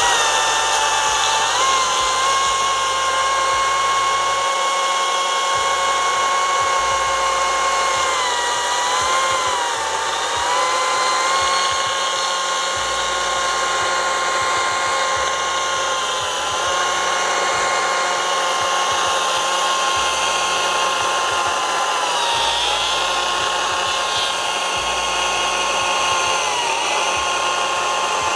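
STIHL MSA 60 C-B 36V battery chainsaw cutting through a log's butt end: a steady, high electric whine of motor and chain that sags in pitch several times as the cut loads it, about a third of the way in, past two-thirds and near the end.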